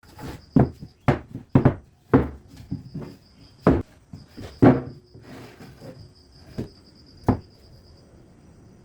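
Wood being handled: about eight sharp, irregular wooden knocks and clunks, the loudest a little before the midpoint, with a faint high pulsing chirr behind them.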